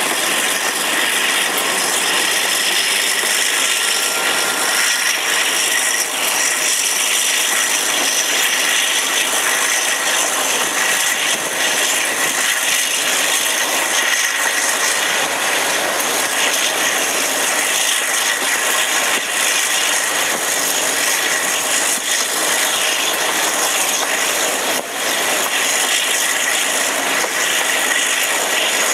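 Class 52 'Western' diesel-hydraulic locomotive D1010 running along the line, heard close up from its cab window: steady, loud engine and running noise with a high whine that slowly rises in pitch.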